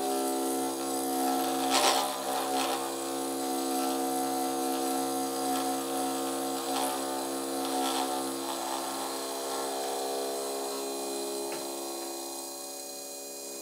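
High-speed milling spindle mounted on a benchtop lathe, its end mill cutting an aluminium part. A steady whine of several tones runs under a rough cutting noise, loudest about two seconds in and easing off near the end.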